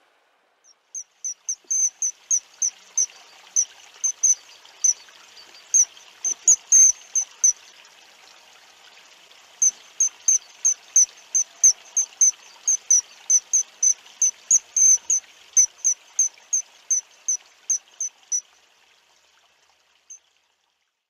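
A bird calling over and over, short sharp high notes about three a second with a brief pause midway, over the steady rush of a river. The calls stop shortly before the end, with one last note after.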